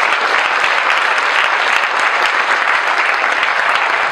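Audience applauding, a dense, steady clapping that is loud throughout.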